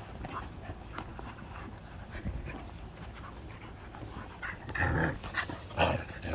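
Portuguese Water Dog puppy making short vocal noises, with the loudest bursts near the end.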